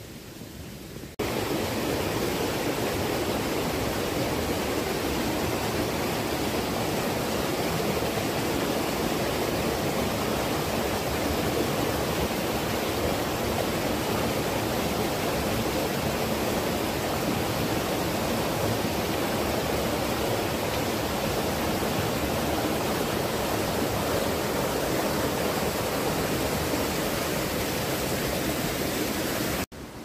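Waterfall rushing steadily, an even wash of falling water that starts abruptly about a second in and cuts off just before the end.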